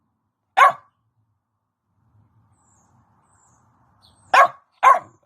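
Staffordshire bull terrier puppy giving three short barks: one about half a second in, then two in quick succession near the end.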